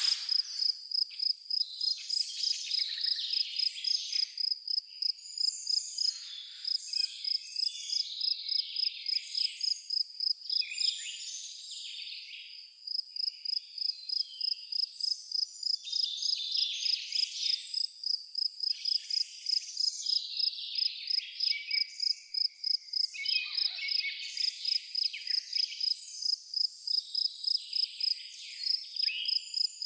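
A cricket chirping in a steady, even rhythm, about three high-pitched chirps a second, breaking off briefly about eleven seconds in, under a chorus of songbirds singing varied chirps and warbles.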